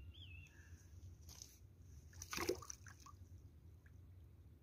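A small splash in the water about halfway through, as a released carp goes back in, with faint sloshing around it.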